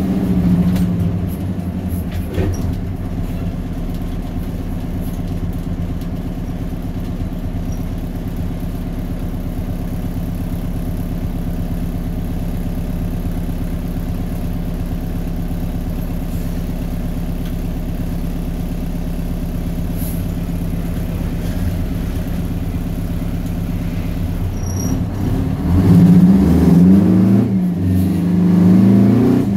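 Straight-piped Detroit Diesel 8V71 two-stroke V8 of a 1973 GMC Astro cabover, heard from inside the cab, running steadily at an even low pitch. About 26 s in it gets louder and revs up, its pitch climbing and dropping as the truck pulls away through the gears.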